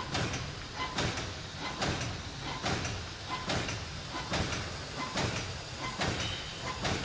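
Center seal pouch making machine running, cycling with a sharp mechanical stroke about every 0.85 s over a steady running noise.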